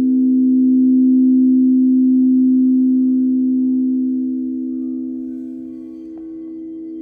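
Singing bowl ringing with a sustained low tone and a few fainter higher overtones, loudest in the first few seconds and easing off later, with a faint tap about six seconds in.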